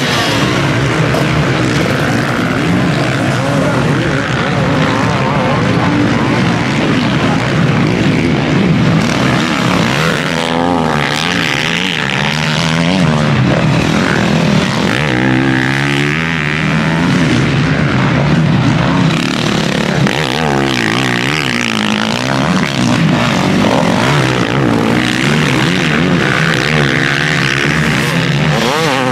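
Several motocross bikes' engines racing, overlapping and continuous, their pitch repeatedly rising and falling as the riders rev through the gears and pass by.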